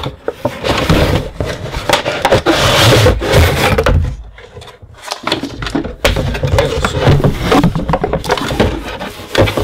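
Cardboard packaging being handled: the printed toy box and an inner corrugated cardboard box sliding, rubbing and scraping against each other, with knocks. There is a short lull about four seconds in before the handling picks up again.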